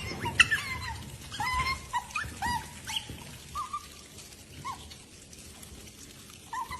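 Dog whimpering: a string of short, high whines through the first five seconds or so, with one more near the end.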